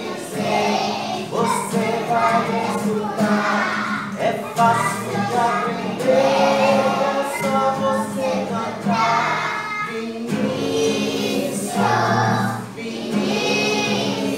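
A group of young children singing together to a strummed acoustic guitar.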